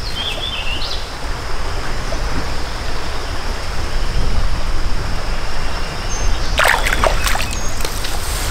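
Creek water running and rippling over flooded grass in the shallows. A bird chirps briefly at the start, and a short splash comes a little after the middle as a small largemouth bass is let go by hand into the water.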